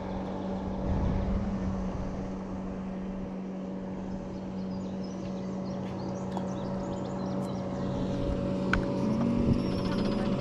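A boat motor running with a steady hum, its pitch holding level, and a single sharp click about nine seconds in.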